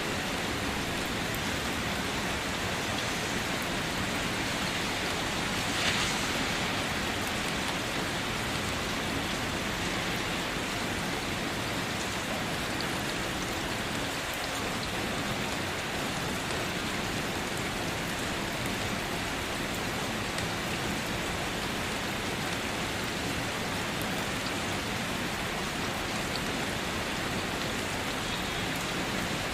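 Steady rain falling, an even hiss of many drops, with one brief sharper, louder sound about six seconds in.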